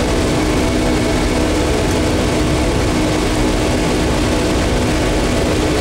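Steady drone of an aircraft's engines and rushing air heard inside the cockpit in flight: a constant hum of several tones under an even hiss.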